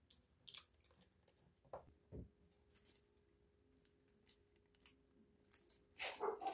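Faint rustles and small clicks of a plastic product packet being handled, then a louder crinkling of the packaging near the end.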